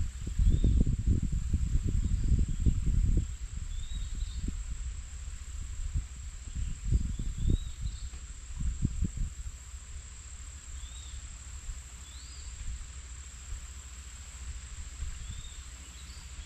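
A steady high-pitched insect drone, like crickets or cicadas, with short high chirps every second or two. Bursts of low rumbling noise come through the first three seconds and again around seven to nine seconds in.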